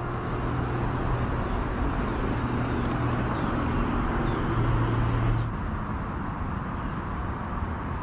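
Steady outdoor background noise with a low, even motor hum that stops about five and a half seconds in, and a few faint bird chirps early on.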